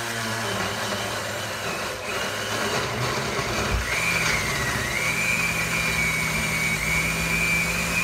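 Hamilton Beach Scovill Insta Blend 14-speed countertop blender running, chopping spinach, arugula, apple, cucumber and pineapple into a green smoothie. About four seconds in, a button press steps the motor up to a higher speed, with a brief knock, and the motor then runs at a higher pitch with a steady high whine.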